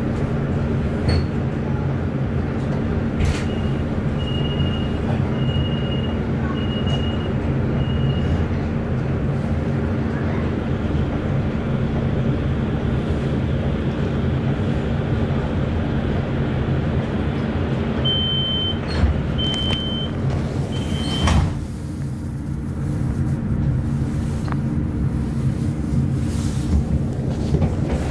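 Duewag B80D light rail car running between stops: a steady drone of drive hum and wheel-on-rail noise. Two runs of short, high electronic beeps sound over it, five a few seconds in and three more about two-thirds of the way through. Right after the second run, the higher rushing noise drops away suddenly.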